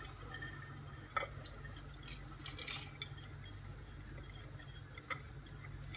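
Faint drips and dribbles of soaked lentils and their water falling from a glass bowl into a pot of wet gravy, with a light click about a second in and another near five seconds, over a low steady hum.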